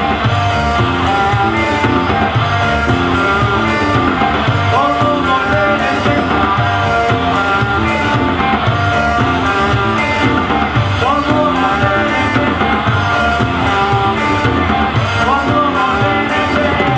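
Rock band playing live: electric guitars over a drum kit, with steady cymbal strikes and occasional bent guitar notes.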